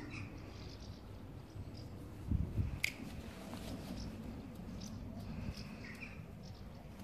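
Outdoor garden ambience: a few short, distant bird chirps over a steady low rumble, with a brief thump and a sharp click about two and a half seconds in.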